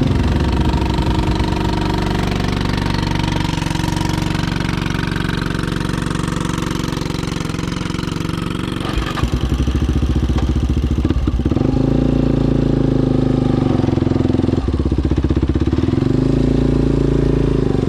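ATV engine running under throttle, picking up revs and getting louder about nine seconds in, then dropping and rising again several times.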